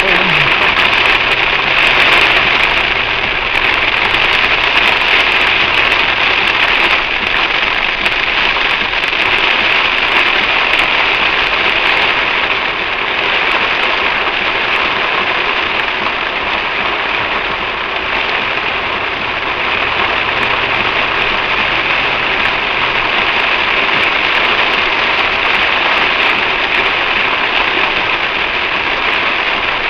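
Heavy rain pouring on a moving car, heard from inside: a loud, steady, dense hiss, with a faint low hum from the car underneath.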